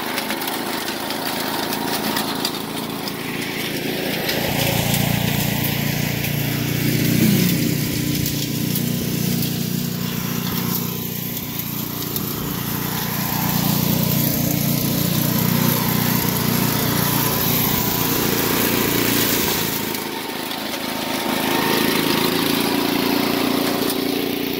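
Mighty Mac chipper-shredder's 7 hp Briggs & Stratton engine running hard on its rebuilt carburetor while the machine chews through leafy brush. The sound turns deeper and heavier from about four seconds in and eases briefly near the end.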